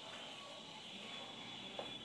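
Faint squeaks and scratches of a marker writing on a whiteboard, over a faint steady high-pitched hum.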